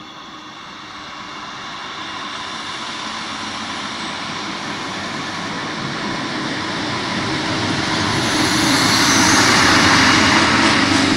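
Trenord ALe 582 electric multiple unit pulling into the station: its running noise on the rails grows steadily louder as it approaches and draws alongside, loudest near the end, where a steady low hum and a few clicks appear.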